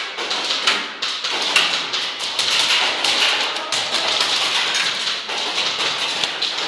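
Airsoft gunfire in close quarters: a running stream of sharp taps and clicks, BBs striking surfaces, over a steady hiss of background noise.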